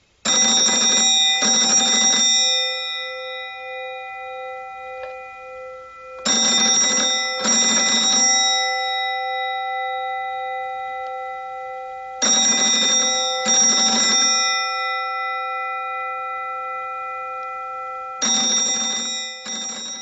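Telephone-bell ringtone: an old-style ringing bell sounding in double rings, four pairs about six seconds apart, each pair leaving a ring that slowly fades.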